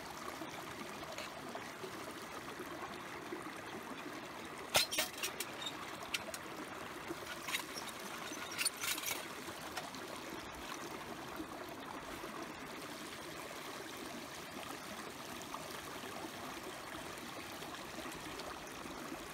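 Small metal tin and its contents being handled in leather work gloves: a few sharp clicks and taps about five seconds in and again around nine seconds in, over a steady rushing background noise.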